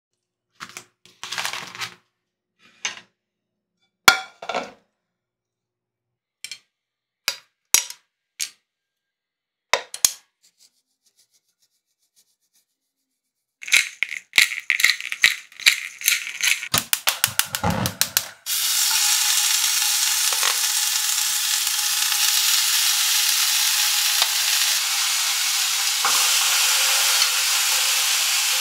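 Scattered clicks and knocks of kitchen utensils and dishes being handled, then a quickening run of crackling clicks as seasoning goes onto raw meat. About two-thirds of the way through, after a low thump, a steady loud sizzle sets in: meat searing in a hot frying pan.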